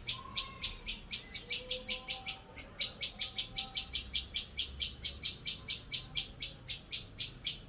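A bird calling: one short, sharp, high note repeated about four times a second, with a brief pause about two and a half seconds in.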